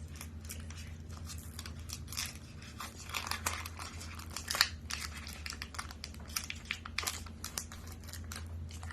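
Foil trading-card pack wrapper crinkling and tearing as a pack is ripped open, irregular crackles with a sharp snap about halfway through.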